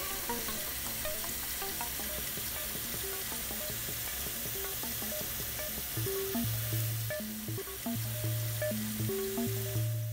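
Water running from a kitchen tap into a plastic measuring jug as it fills, a steady splashing hiss that cuts off suddenly at the very end as the tap is turned off. Background music plays underneath, with a pulsing bass line coming in about halfway through.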